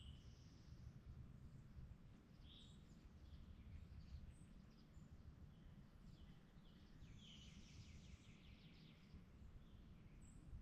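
Near silence: quiet woodland with faint, scattered bird chirps and a quick run of chirps about seven seconds in, over a low steady rumble.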